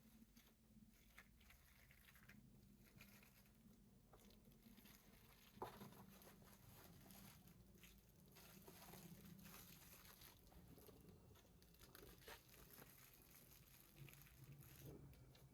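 Near silence: faint room tone with a few faint handling noises and one small click about five and a half seconds in.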